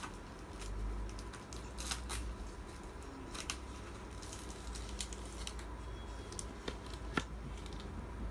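Room noise: a low steady rumble with scattered light clicks and rustles, the sharpest about two and seven seconds in.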